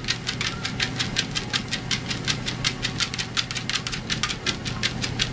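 Electric treadmill running with a steady motor hum, while a Cardigan Welsh Corgi's paws tap the moving belt in a quick, even rhythm, about six footfalls a second, as she trots at 4 miles per hour.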